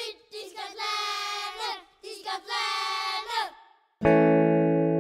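A high voice singing a football club song unaccompanied in short held phrases; about four seconds in, a guitar chord is struck and rings on loudly.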